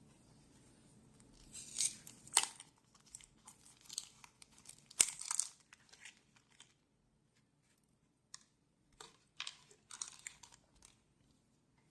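Small packaging being crinkled and torn open while a replacement lighter part is taken out, in several short bursts with two sharp clicks.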